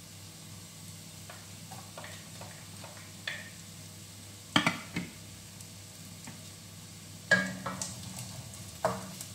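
Onion, ginger and garlic frying in oil in an aluminium pot, with a soft, steady sizzle. A wooden spatula stirs and knocks against the pot several times, loudest about four and a half and seven and a half seconds in.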